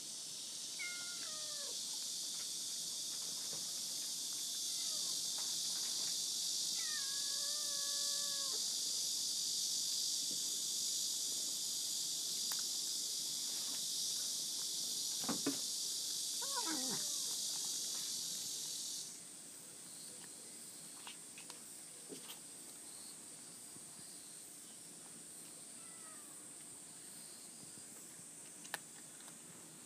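A steady high-pitched hiss, like a chorus of insects, that cuts off suddenly about two-thirds of the way through. A cat meows briefly twice early on, and there are a few light clicks from cats eating dry kibble out of a metal bowl.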